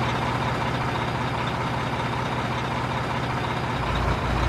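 Red Quick compact farm tractor's engine running steadily while it pulls a rotary tiller through a wet, muddy field. A deeper rumble comes in shortly before the sound cuts off suddenly.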